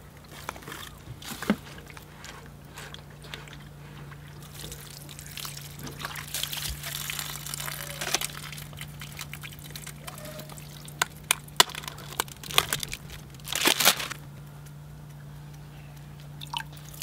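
Water sloshing and pouring in the housing bowl of a cartridge water filter as the bowl is unscrewed and the dirty paper cartridge is taken out, with scattered clicks and knocks of the plastic parts. A louder burst of splashing comes near the end, over a faint steady low hum.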